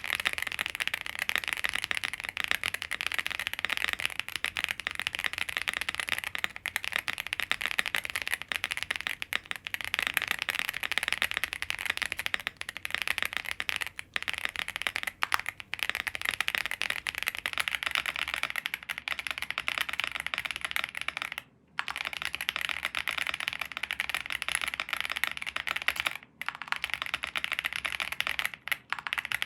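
Fast continuous typing on a WIND X98 full-size custom mechanical keyboard with lubed Boba U4T tactile switches on a POM plate, foam-filled case and Cherry-profile keycaps, giving dense overlapping key clacks. The typing stops briefly twice, about two-thirds of the way in and again a few seconds later.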